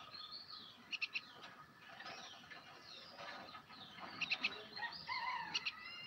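A myna chirping and whistling in short sliding calls, broken by quick runs of sharp clicking notes about one second in and again around four seconds in.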